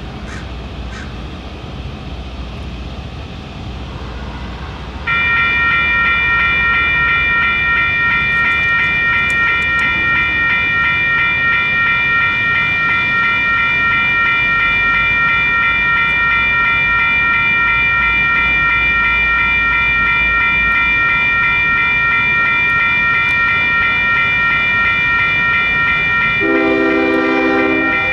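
Railroad crossing's two WCH Gen 2 electronic bells start up about five seconds in and ring steadily, a fast, high-pitched repeating ding, as the crossing activates for an approaching train. Near the end the train's locomotive horn sounds briefly over the bells.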